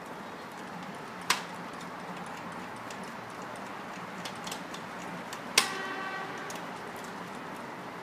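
A hand screwdriver clinking against the steel faceplate of a mortise lock body as it drives in the mounting screws. There are two sharp metallic clicks, one about a second in and a louder one past the middle that rings briefly, with a few faint ticks between them.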